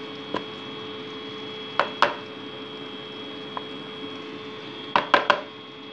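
A few sharp knocks and clacks against a mixing bowl of flour breading: a pair about two seconds in and a quick run of three near the end, over a steady background hum.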